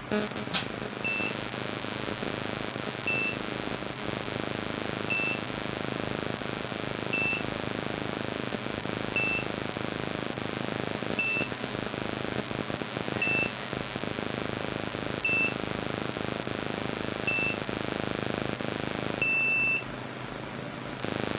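Wireless automatic hair curler beeping during its timed curl: nine short high beeps about two seconds apart, then one longer beep near the end, which signals that the curl is done and the hair can be released. A steady hiss runs beneath.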